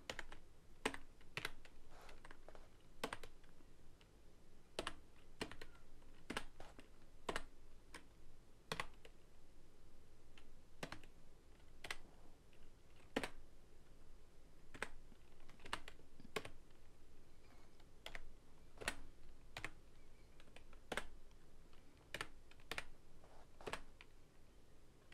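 Keys on a computer keyboard tapped one at a time, slowly and unevenly, as a serial number is typed in. The clicks are faint.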